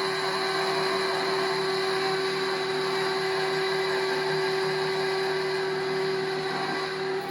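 KitchenAid Professional 550 HD stand mixer running steadily with one beater attached, its motor and gear train humming evenly on a test run after a repair to get the stalled beaters spinning again. The level dips slightly near the end.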